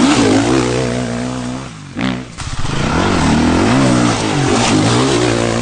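Sherco 450 SEF-R dirt bike's four-stroke single-cylinder engine revving up and down under the throttle while riding off-road. The engine sound drops off briefly about two seconds in, then the revving picks up again.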